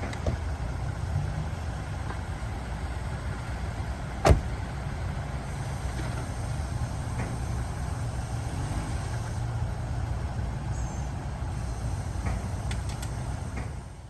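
Steady low rumble of a car, with one sharp knock about four seconds in.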